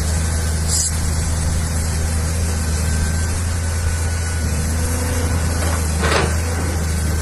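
Caterpillar 320C hydraulic excavator's diesel engine running steadily, with a short rushing noise about six seconds in.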